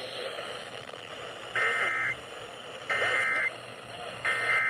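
Emergency Alert System end-of-message code: three short bursts of buzzy SAME digital data tones, evenly spaced, marking the close of the warning. They come over an FM radio with a steady hiss underneath.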